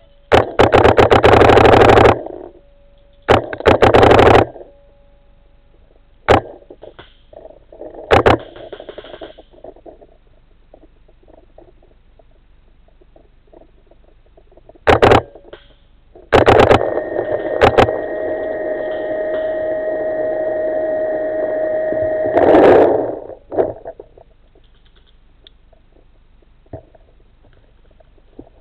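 Paintball marker firing rapid strings of shots: two long bursts near the start, then single shots and short strings scattered through the rest. Later a steady high tone holds for about six seconds before stopping.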